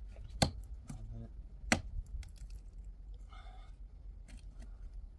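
Sharp chopping blows from a hand tool, two loud strikes about a second and a half apart with lighter knocks and clicks between.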